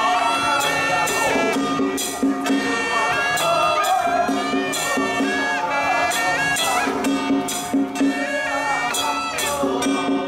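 Traditional Taiwanese temple ritual music: a shrill double-reed suona playing a sliding melody over repeated cymbal and gong clashes.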